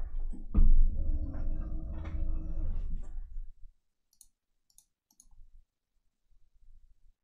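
Low rumbling noise with a faint steady hum for the first three and a half seconds, then near quiet broken by three quick sharp computer mouse clicks a little after four seconds in.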